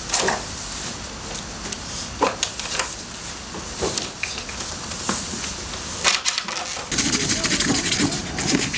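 A sheet of cardboard being handled, with rustles, scrapes and scattered light knocks and clicks. Near the end comes a denser scratching, like a marker being drawn across the cardboard.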